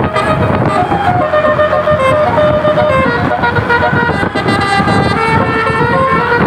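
Tour bus 'telolet' musical horn playing a quick tune of short stepped notes, over a dense low rumble.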